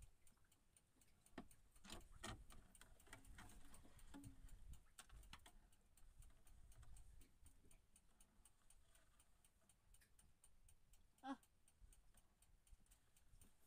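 Near silence: faint, even ticking with a few soft rustles and scrapes as a fishing handline is hauled in hand over hand.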